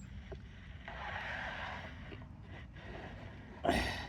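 A plastic hive-entrance drawer being slid and handled, making a soft scraping for about a second, then a louder short scrape near the end.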